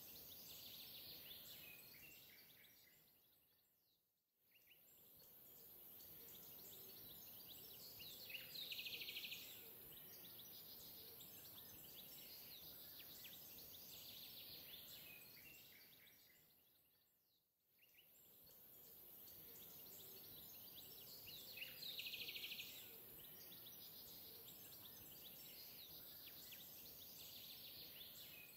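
Near silence: a faint steady hiss with faint, high chirp-like sounds. The same stretch of background fades out and back in twice, repeating about every thirteen seconds.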